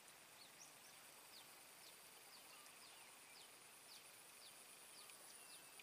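Near silence: quiet outdoor ambience with faint, short, high chirps repeating about twice a second over a faint steady high whine.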